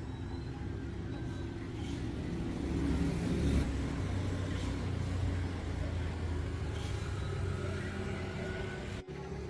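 A motor running steadily with a low hum, swelling briefly about three seconds in, then cutting off abruptly near the end.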